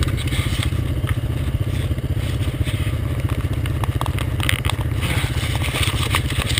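ATV engine idling with a steady, even pulse. Scattered clicks and scrapes come through about two-thirds of the way in.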